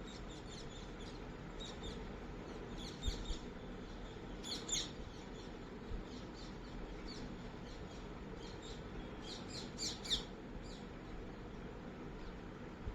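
Small birds chirping in rapid short calls, bunched in flurries about three, four and a half, and nine to ten seconds in, over a steady room hiss.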